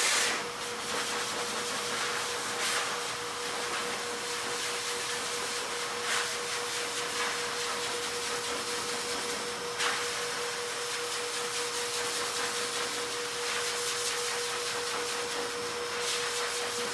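Shernbao pet force dryer running, blowing air steadily through its hose onto a wet dog's coat: an even rushing of air with a constant hum and a few faint knocks.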